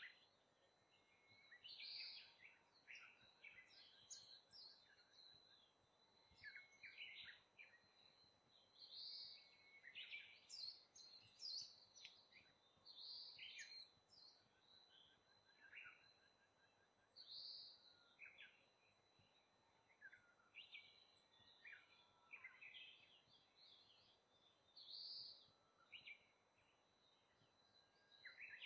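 Small songbirds calling: scattered short, high chirps and thin notes, with a clear arched call that comes back every few seconds, faint against a quiet background.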